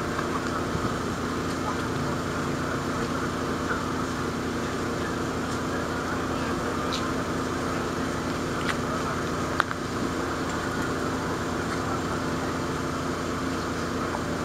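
Diesel truck engine idling steadily, with a few faint clicks around the middle.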